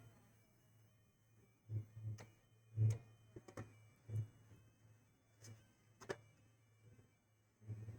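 Light clicks and knocks, about eight scattered irregularly across the stretch, over a faint steady low hum.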